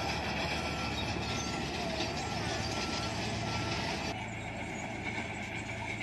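Diesel engines of heavy earthmoving machines running, among them a Bomag single-drum soil roller, with a reversing alarm beeping regularly, about once every 0.7 s, that stops a little before four seconds in.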